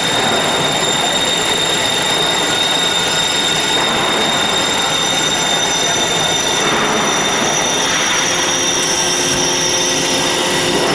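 Band saw running, with a steady metallic screech and high-pitched whine, and a second higher whine joining about halfway. The coolant water is not yet turned on.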